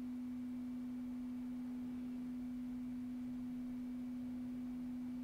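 A steady low hum at a single unchanging pitch, over faint hiss.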